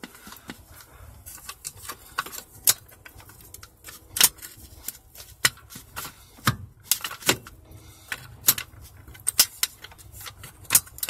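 Irregular metallic clicks, taps and clinks of steering column parts being worked by hand as a piece is wiggled loose and keeps catching on something.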